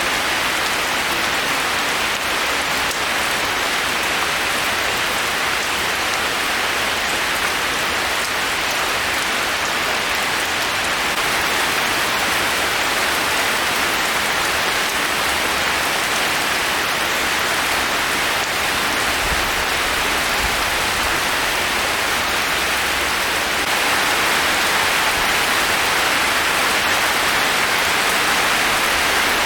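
Heavy rain falling, a dense, steady hiss that grows a little louder near the end.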